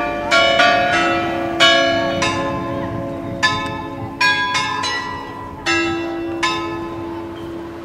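Carillon bells playing a tune: a series of single bell strikes at different pitches, each ringing on under the next, the last about six and a half seconds in, then dying away.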